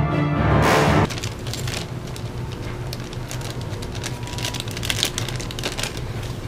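Background music ends with a swell about a second in. After it comes a thin plastic parts bag being handled and crinkled, a dense run of small crackles and ticks.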